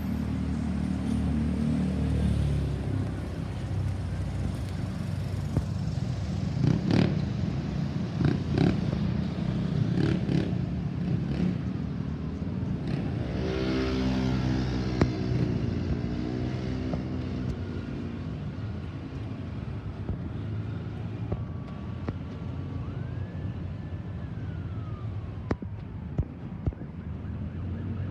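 Road traffic, with vehicle engines running and passing throughout. Near the end a single faint siren wail rises, holds briefly and falls away.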